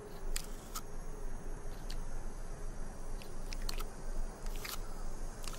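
Desert tortoise biting and chewing a prickly pear cactus pad: a series of crisp, irregularly spaced crunches.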